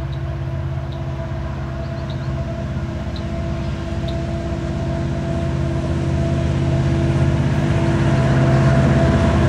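Diesel engines of Union Pacific freight locomotives running steadily with a low, even drone as the train approaches, growing gradually louder.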